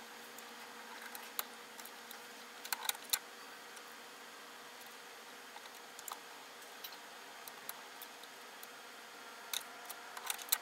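Faint steady hiss and low hum from the valve amplifier and speakers, with scattered small clicks and ticks as the record and tonearm of a Perpetuum Ebner 99V turntable are handled, in small clusters about three seconds in and near the end. No music comes through: the pickup cartridge is dead.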